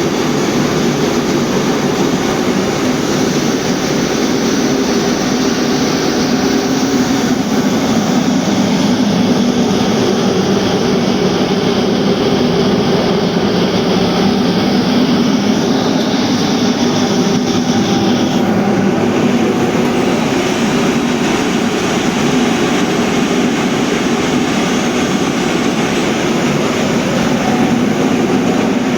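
Electric 220 V cold-forging machine running under load as it draws out the end of a 16 mm square steel bar into a flattened tip. The mechanical drone is steady, and its upper tone changes about two-thirds of the way through.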